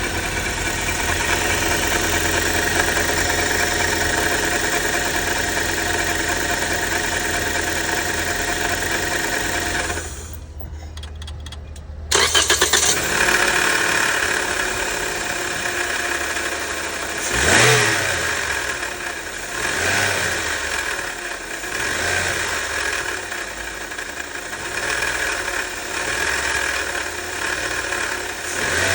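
Car engine running with an abnormal mechanical noise, a steady high whine over the engine note, coming from a failing water pump rather than the alternator. The noise drops away for about two seconds, then returns suddenly and goes unevenly, with one brief rise in engine speed.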